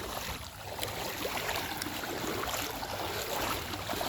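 River water flowing with a steady rushing sound, with a few faint small ticks in it.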